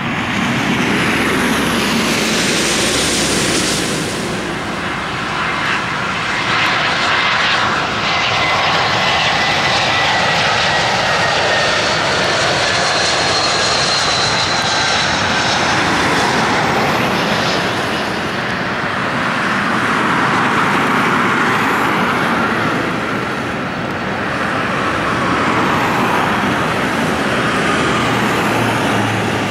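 Airbus A320's twin IAE V2500 jet engines heard during a landing on a wet runway: a steady loud rush of engine noise with slowly falling whines as the jet comes in, touches down about midway and rolls out.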